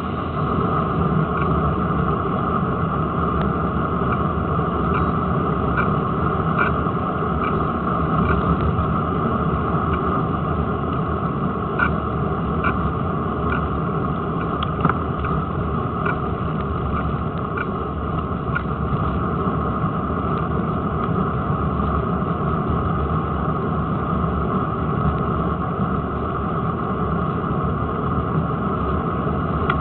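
Steady rushing rumble of a bicycle riding on a tarmac road, picked up by a camera mounted on the front forks: tyre and wind noise, with scattered small clicks and rattles.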